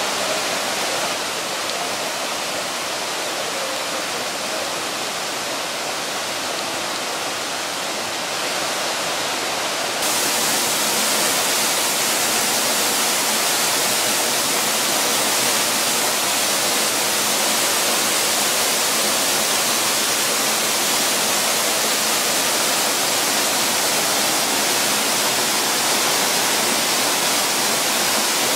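Northrup Falls pouring: a steady, even rushing of falling water that gets a little louder and brighter about ten seconds in.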